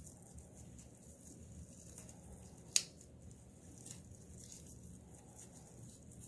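Quiet handling of craft materials, with one sharp click a little under three seconds in and a few faint ticks.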